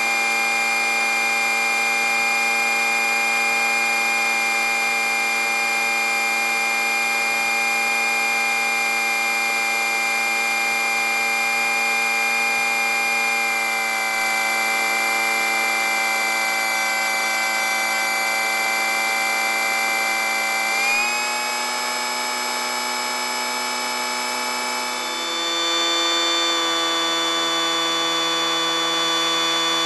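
Onboard sound of the LoRyder aircraft's motor and propeller: a steady buzzing whine in flight. Its pitch steps up briefly about two-thirds of the way in and shifts again soon after, as the throttle changes.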